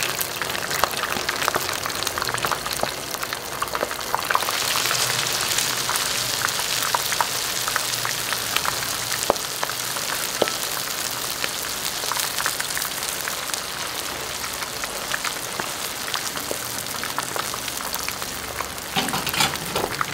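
Hot oil sizzling and crackling steadily around a battered mussel fritter deep-frying in a wok, with many small pops. A slotted spatula scrapes against the pan near the end.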